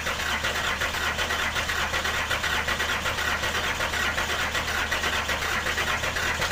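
Hino common-rail diesel truck engine idling steadily with a fine, rapid, even clatter, running on a newly fitted supply pump and injectors.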